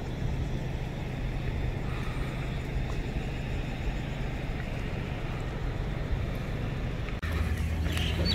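Steady low rumble of a motor vehicle engine running. After a sudden change in the background about seven seconds in, a few short high chirps are heard.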